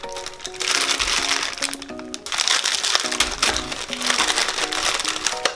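Plastic wrapper of a Tim Tam biscuit packet crinkling as it is handled and torn open by hand, over background music of short steady notes.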